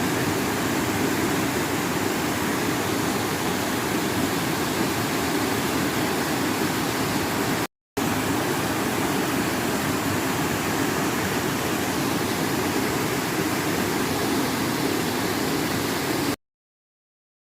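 Mountain stream water rushing steadily over rocks. It breaks off for an instant about eight seconds in, resumes, and cuts off suddenly near the end.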